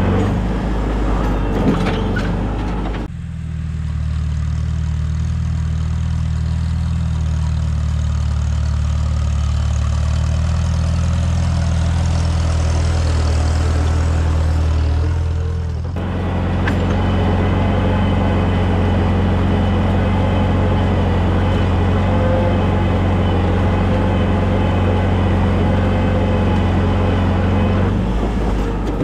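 Tractor engine running steadily under load while pulling a plow through garden soil. Its sound changes abruptly about three seconds in and again about halfway through.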